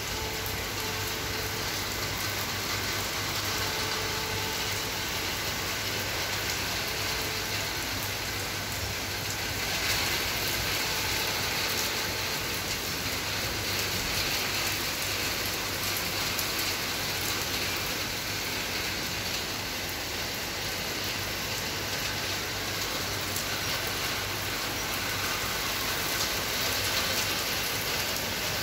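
Heavy rain falling steadily on leafy trees and a wet rooftop terrace, an even, unbroken hiss.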